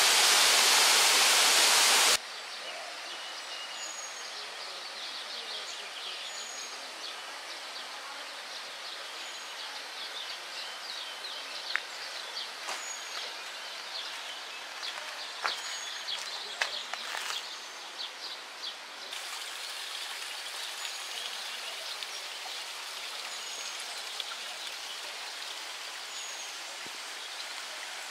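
Loud, steady rush of falling water that cuts off suddenly about two seconds in. A quieter steady water hiss follows, with short high bird chirps every second or two and a cluster of sharp clicks in the middle.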